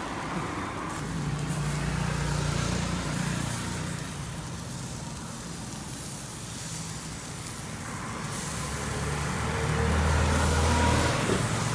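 Motor vehicles passing on the road, their engines rising to a low rumble twice: first a second or two in, then louder near the end.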